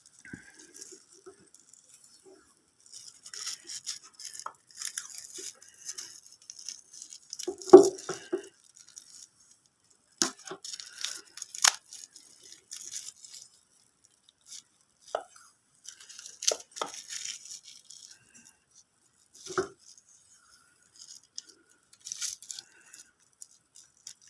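Tape being pulled off the roll and wrapped around a motorcycle wiring connector: on-and-off crackling peels and small handling clicks, the loudest burst about eight seconds in.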